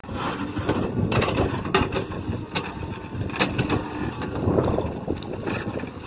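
JCB 3CX backhoe loader digging: the diesel engine running under load while the backhoe arm and bucket clank and knock in the soil, several times, with a brief steady whine around three seconds in.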